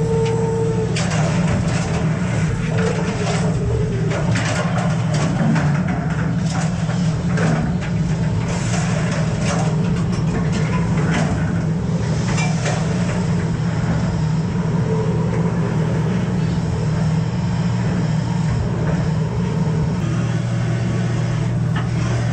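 Fishing boat's machinery running with a steady low drone, with scattered knocks and clatter from work on the steel deck.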